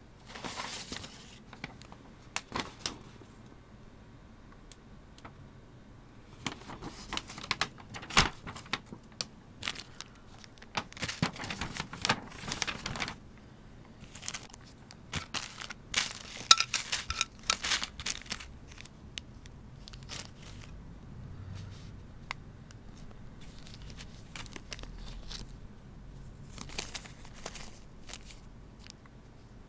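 Small plastic bags and packaging crinkling and rustling as they are handled, in irregular bursts, with scattered light clicks.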